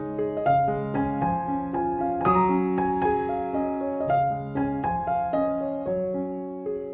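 Background music: a piano piece, single notes and chords struck one after another at an unhurried, even pace.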